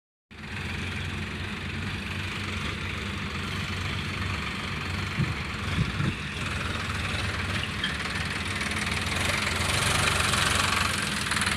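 Heavy diesel engine of earthmoving or farm machinery running steadily at low revs, with two brief sharper sounds about five and six seconds in; it grows louder and brighter near the end.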